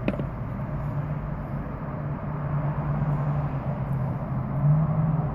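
A steady low hum of a running motor, like an idling vehicle engine, with a single click right at the start.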